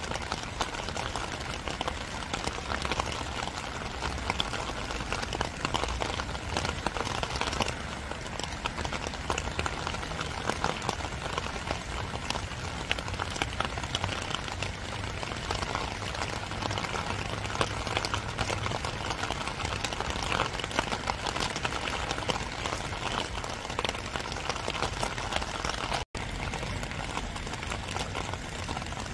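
Steady spring rain falling: an even hiss made of many fine, close drops ticking. It cuts out for an instant near the end.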